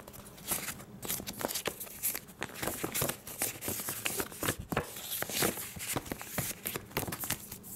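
Paper brochures and folded leaflets rustling and sliding against each other as they are handled, with many irregular crinkles and flaps.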